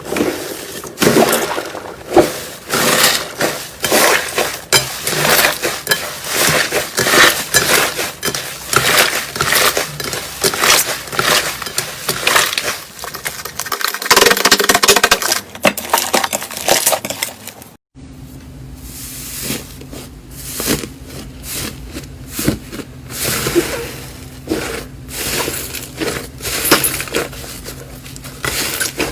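Slime being squeezed, poked and pressed by hand, giving dense crackling, clicking and popping. About two thirds of the way through it cuts to another slime clip with a faint steady hum underneath.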